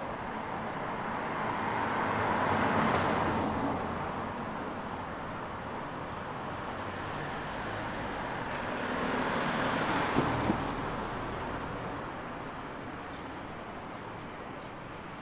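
Two cars pass by on the street, one about three seconds in and another about ten seconds in, their tyre and engine noise rising and fading each time. There are two short sharp knocks as the second one goes by.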